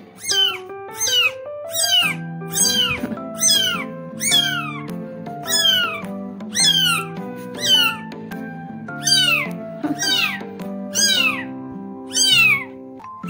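A newborn kitten mewing over and over: short, high-pitched cries that fall in pitch, one or two a second, over background music.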